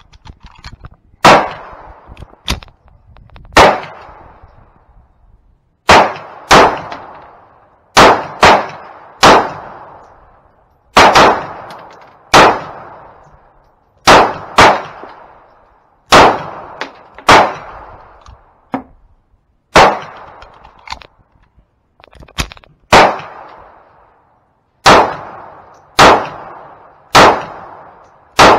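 Interarms Walther PPK/S pistol in .380 ACP fired shot after shot at a slow, uneven pace, about one shot every one to two seconds with some pairs close together. Each report is a sharp crack with a short ringing echo.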